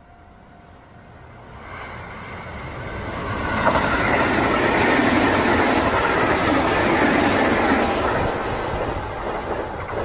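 Sanyo Electric Railway electric commuter train approaching and passing close by, its wheels running over the rails. The sound builds over the first few seconds, stays loud through the middle and begins to fade near the end.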